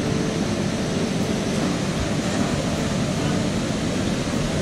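Steady, loud rush of whitewater pouring over a creek's falls.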